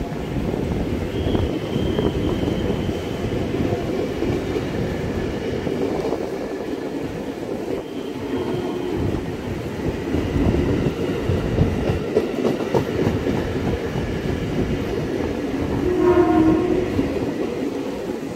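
Former JR 205-series KRL electric train rolling past at close range, with steady wheel-on-rail rumble, rhythmic clickety-clack and a faint motor whine. A train horn sounds briefly about sixteen seconds in.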